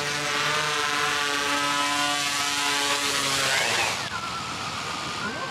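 V-Coptr Falcon bi-copter drone's two propellers running close by: a steady hum of several tones. About three and a half seconds in the pitch sweeps up and back and the sound drops as the drone sits on the pavement with its props still turning, and near the end a whine falls in pitch as the motors slow.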